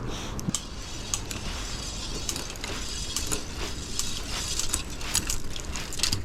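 Mountain bike drivetrain turned over by hand while the shifting is indexed: the chain runs over the cogs and chainrings with a steady hiss and a scatter of sharp clicks.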